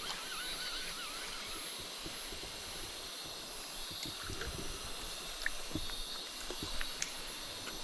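Forest river ambience: the steady hiss of a small stream with a high, even insect drone. A repeated warbling call sounds in the first second, and scattered soft knocks and clicks come through the middle and latter part.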